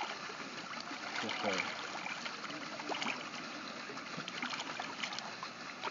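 Shallow water lapping with small splashes and light ticks as fish stir and swirl at the surface.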